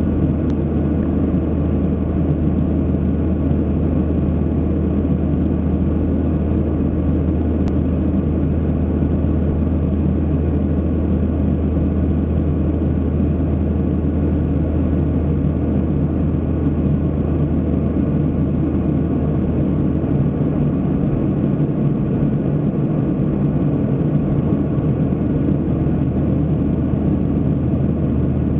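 Steady low drone of an airliner cabin in flight, unchanging throughout.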